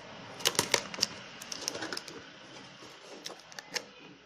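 Irregular sharp clicks and taps in several quick clusters as hands work at a tight-fitting cardboard product box to get it open.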